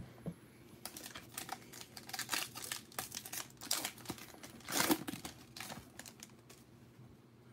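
Foil wrapper of a 2020 Prizm football hobby pack crinkling and tearing as it is ripped open by hand: a quick run of crackles and rips, loudest about five seconds in.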